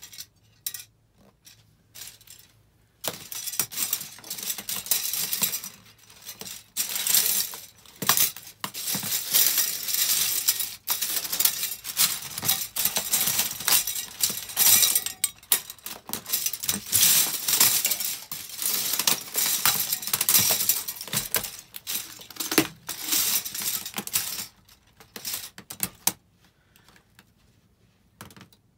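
White disposable plastic spoons and forks cracking, snapping and clattering as they are trampled and crushed underfoot in socks. A few scattered cracks at first, then about three seconds in a dense, almost continuous crackling of breaking plastic that stops a couple of seconds before the end.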